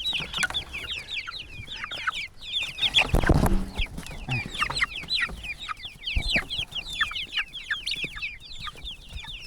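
A flock of young chickens peeping and clucking: a steady stream of short, high, falling cheeps from many birds at once. A louder rustling knock comes about three seconds in.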